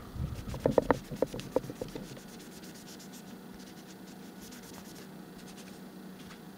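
Rubbing and scraping on a glued wooden couch leg as excess glue is wiped off. A quick run of knocks and taps comes in the first two seconds, then lighter scratchy rubbing strokes.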